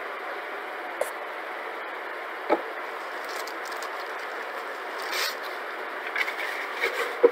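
Steady hiss with light handling noises: a few single knocks, the loudest about two and a half seconds in, a brief rustling scrape a little past halfway, and small taps and clicks near the end.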